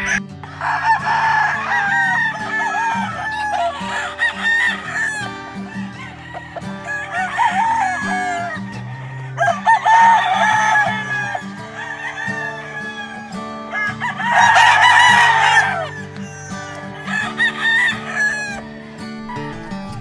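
Gamefowl roosters crowing several times, the loudest crow about fifteen seconds in, over quieter background guitar music.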